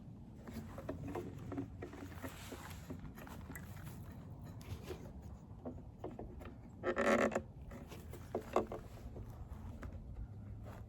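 Small clicks and rustles of hands working rubber fuel lines down into a backpack blower's fuel tank. About seven seconds in, one short animal call stands out as the loudest sound.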